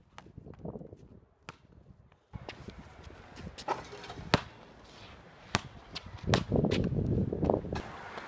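A basketball bouncing and shoes on a concrete court: a string of sharp, separate knocks. A louder low rumbling noise comes a little past the middle.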